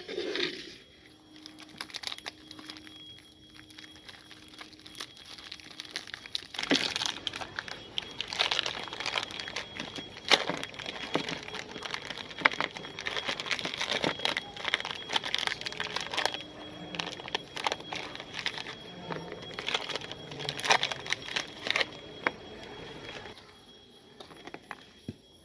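Plastic candy and cookie wrappers crinkling and tearing as they are handled, an irregular run of crackles that is densest through the middle.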